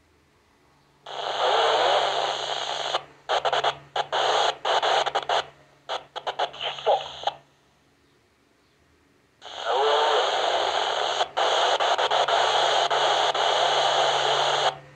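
Yaesu FT-60 handheld receiver on 255.550 MHz in the UHF military satellite band, playing noisy, garbled transmissions through its speaker. Two long bursts of hiss and distorted signal cut in and out abruptly; the first breaks into short choppy keyings before stopping, and the second starts a couple of seconds later.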